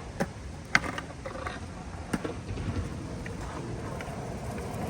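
Skateboard on soft 78A urethane wheels rolling with a steady low rumble, with three sharp clacks of the board in the first couple of seconds.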